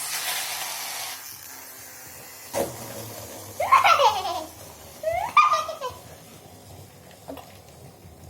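A child laughing in two short bursts of high, falling squeals. Before them comes a hiss lasting about a second at the start, and a single knock about two and a half seconds in.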